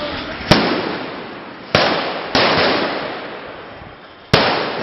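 Four sharp, loud bangs, each followed by a long echo that dies away over a second or two: one about half a second in, two close together near the middle, and one near the end. The person filming takes them for gunshots.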